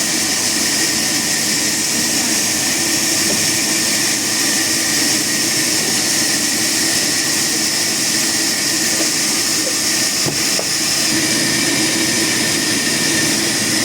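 Sawmill machinery running steadily, an even mechanical hiss and hum with no strokes or changes in pace.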